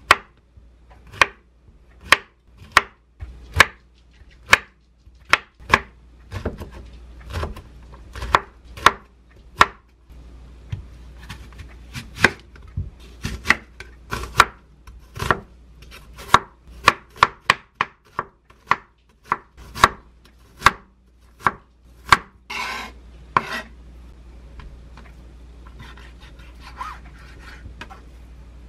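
Chef's knife chopping on a wooden cutting board: sharp taps of the blade hitting the board as zucchini and onion are sliced and diced, mostly one to two a second with some quicker runs. A short scraping sound comes about two-thirds of the way in, and the taps thin out near the end.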